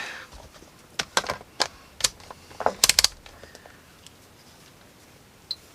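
Several short, sharp clicks and taps of small hand tools and multimeter test leads being handled on a workbench, about eight in the first three seconds with a quick cluster near the end of them.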